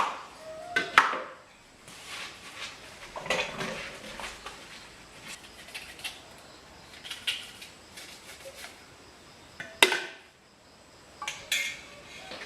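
Kitchen dishes and utensils clinking and clattering in scattered, irregular knocks. Sharper clinks come near the start, about a second in and about ten seconds in, one of them ringing briefly.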